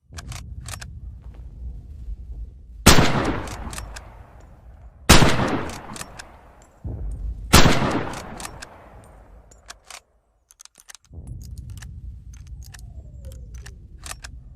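Three shots from a Mosin-Nagant M91/30 7.62×54mmR bolt-action rifle, about two and a half seconds apart, each with a long echoing tail. Sharp clicks come between the shots, over a steady low rumble.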